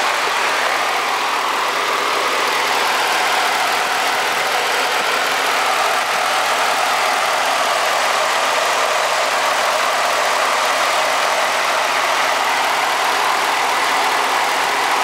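Ford 5.0-litre V8 in a 2014 F-150 idling steadily, heard up close under the open hood.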